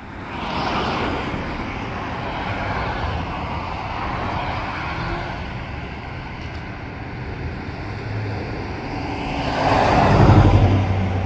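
Road traffic passing close by. Tyre and engine noise swells just after the start as a vehicle goes by. Near the end a pickup truck passes loudly, its engine rumble rising and then fading.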